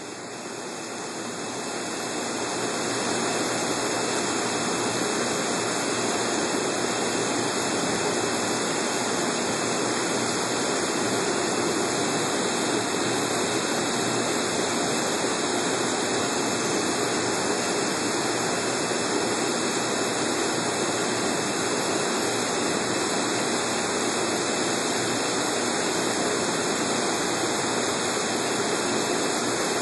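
Water churning and splashing at the surface around an Aqua-Manna Fusion pump's shroud as the pump mixes the tank and draws in air, a steady rushing that swells over the first few seconds and then holds even.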